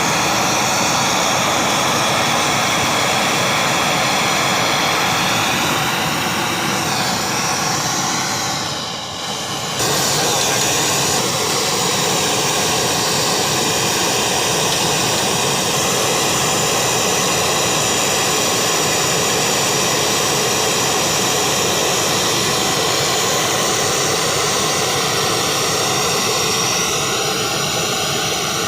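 Gas welding torch flame roaring steadily while brazing on an air-conditioner compressor's pipework. The roar dips briefly about nine seconds in, then comes back at full strength.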